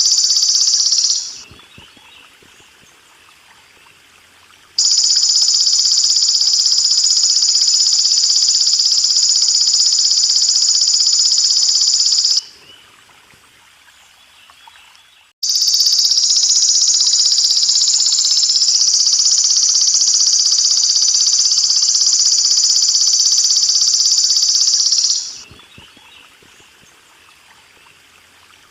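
Belalang emas (golden grasshopper) singing a loud, continuous high-pitched buzzing trill. The song comes in long bouts of about 8 to 10 seconds that start abruptly and fade out, separated by pauses of about three seconds. A faint water trickle runs underneath.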